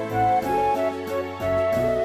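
Instrumental background music: a melody of held notes changing every fraction of a second over a steady low note.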